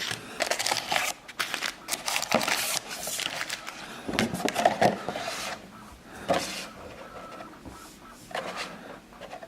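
Baseball card packs being pulled from a cardboard hobby box: irregular rustling and crinkling of the foil wrappers with light taps and scrapes, busiest in the first half and sparser after that.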